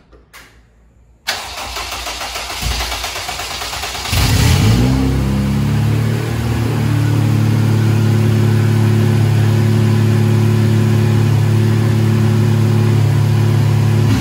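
A swapped four-cylinder Honda engine in an Acura RSX race car starts about four seconds in, after a loud even noise that begins suddenly about a second in. It revs up briefly, then settles into a steady, even idle with no RPM surge, a sign that the idle air control valve, freshly cleaned and freed, is now holding the idle.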